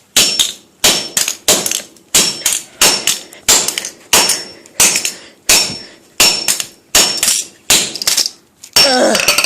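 Hammer striking a combination padlock, about a dozen sharp metallic blows at an even pace of roughly three every two seconds, each with a brief high ring.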